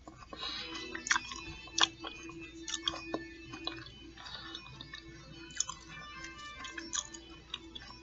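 Close-up chewing of crunchy fried fish nuggets, with sharp crunches every second or so over a quieter steady chewing.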